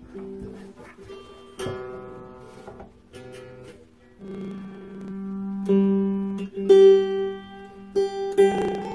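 Strings of a 1926 Martin T-18 tiple plucked again and again while it is tuned up on new strings: single notes and pairs of notes ring out and fade, about half a dozen plucks spaced a second or so apart, louder in the second half.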